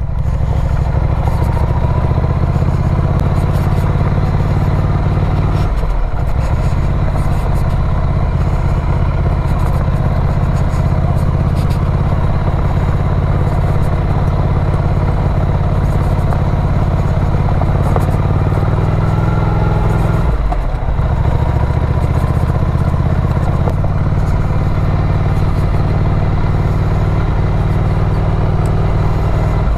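Ducati Scrambler's air-cooled L-twin engine running steadily under way. The sound dips briefly twice, about six seconds in and again about twenty seconds in, then picks back up, as at gear changes.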